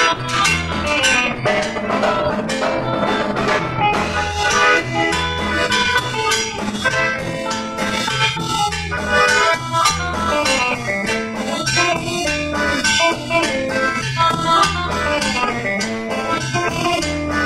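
Cumbia band playing an instrumental passage with a steady beat and a repeating bass line.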